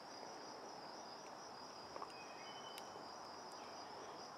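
Faint, steady, high-pitched insect trill, as from crickets, with nothing else prominent.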